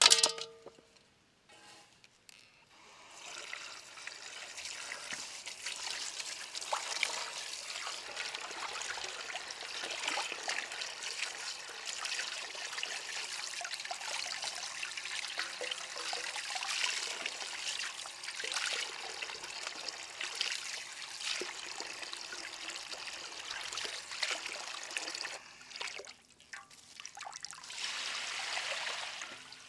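A metal tray strikes an aluminium basin once with a ringing clang. From about three seconds in, water from a garden hose runs and splashes into the basin as raw quail are rinsed by hand. The water stops briefly near the end, then runs again.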